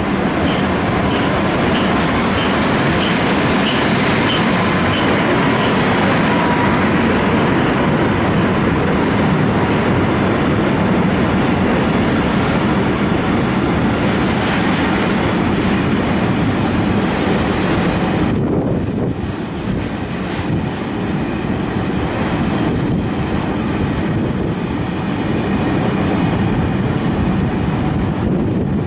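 Container freight train hauled by an ET22 six-axle electric locomotive passing close by: a loud, steady rumble and clatter of wagon wheels on the rails. A row of regular clicks comes in the first few seconds, and the sound dips briefly about two-thirds of the way through.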